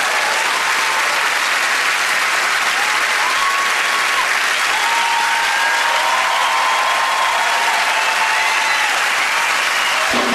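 Large audience applauding steadily, with scattered cheers above the clapping.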